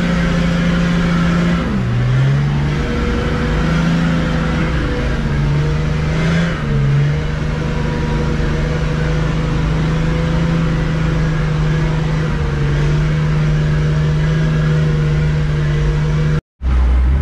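Nissan Patrol's engine running under load, heard from inside the cabin. Its note is steady but dips lower for a moment twice, about two seconds in and again around six and a half seconds. Near the end the sound cuts out completely for about half a second.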